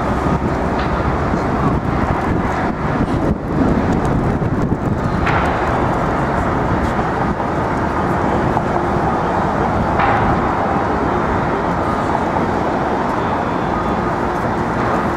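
Steady city street traffic noise, with the rumble of passing cars and a couple of faint knocks about five and ten seconds in.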